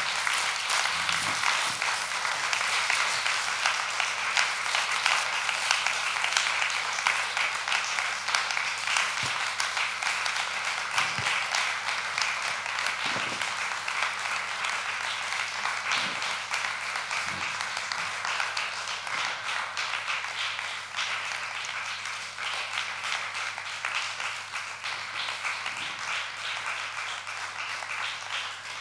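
Audience applauding, a dense patter of clapping that slowly thins out.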